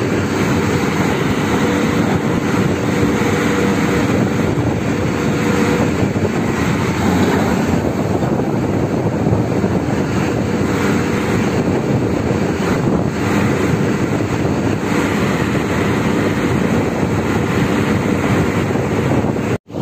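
Loud, steady motor noise with no speech, cutting out for an instant near the end.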